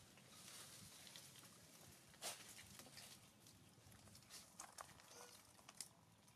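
Near silence with faint rustles and a few soft clicks and taps as macaques shift on dry leaves and handle a piece of fruit; one brief louder rustle comes about two seconds in.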